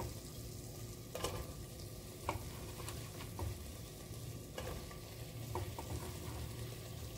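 Chopped bottle gourd pieces going into a pressure cooker of chana dal and masala cooking on the stove: a low, steady sizzle with a few soft clicks and knocks as pieces land and touch the pot and ladle.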